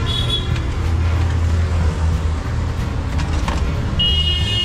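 Steady low rumble of road traffic, with a short high-pitched tone just after the start and again near the end.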